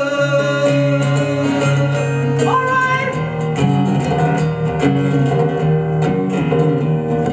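Solo acoustic guitar strummed steadily under a male voice singing a song. The voice holds a long note, then slides up on a new word about two and a half seconds in.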